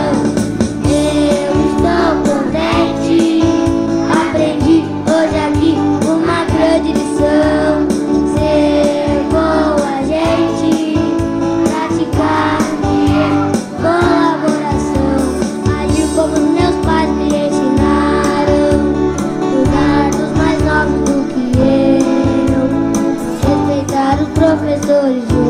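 A children's song: a group of children singing together with a woman's voice, over amplified instrumental accompaniment.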